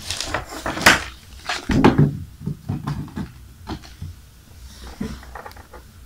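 Handling noises on a wooden desk: a few short knocks and clicks, the loudest about a second in, as a MagSafe charger cable is picked up.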